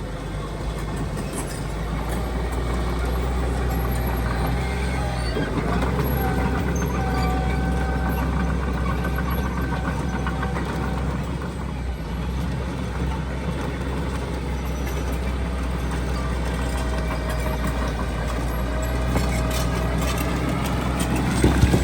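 Heavy diesel earthmoving machinery running steadily with a deep engine drone, with a thin whine that comes and goes over it. It grows louder near the end.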